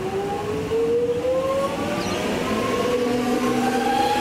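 X'trapolis 100 electric multiple unit pulling away from the platform, its traction motors whining in several tones that rise steadily in pitch as it accelerates.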